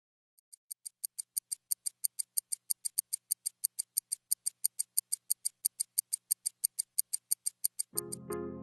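A rapid, even ticking sound effect, about six light, high-pitched ticks a second, fading in at the start. Music comes in near the end.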